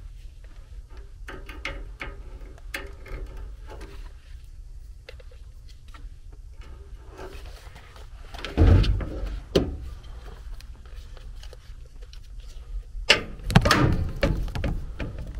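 Clicks, rustling and knocks from a clamp meter and test leads being handled against a furnace cabinet, with two louder clusters of knocks, one about halfway through and one near the end, over a steady low hum.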